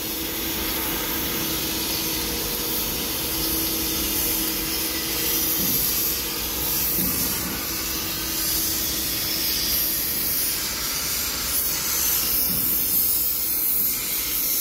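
Steady shipyard work noise during hull repairs: an even hiss with a faint low hum underneath, and a few light knocks near the end.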